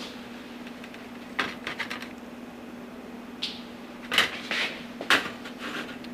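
Sheet-metal patch piece being handled and set into a flanged opening: a few scattered light metallic clicks and taps, with a steady low hum underneath.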